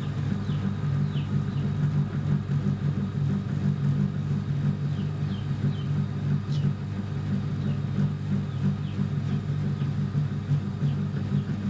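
Potter's wheel spinning with a steady low hum while clay is thrown on it.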